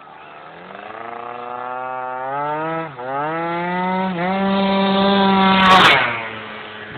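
Malaguti Phantom F12 scooter's two-stroke engine, fitted with a Polini 70cc racing kit, running at high revs as it approaches, its pitch climbing with two brief dips. It passes close by about six seconds in, loudest there, then fades as it rides away.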